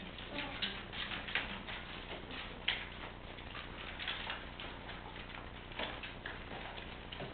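Puppies' paws and claws pattering and scratching on cardboard: a steady string of small, irregular ticks and scrapes.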